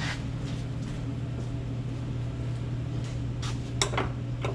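A few light metallic clicks and taps near the end, from hands handling the opened electric power steering unit clamped in a vise. A steady low hum runs underneath.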